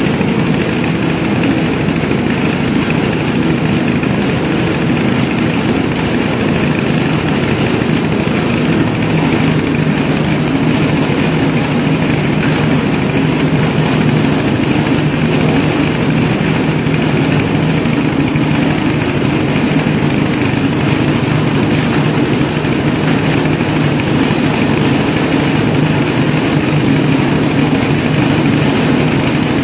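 Multi-crop legume thresher running steadily under power, a continuous machine drone, while dry legume stalks are fed by hand into its hopper.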